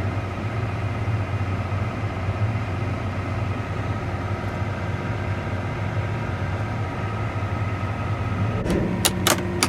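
Tractor engine pulling a grain cart, running steadily with a thin whine over its drone. Near the end the engine note changes and a few sharp clicks sound.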